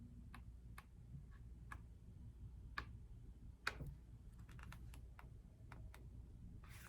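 Faint, scattered clicks and taps of a photobook being handled, its pages turned and pressed, with one slightly louder tap about two thirds of the way through.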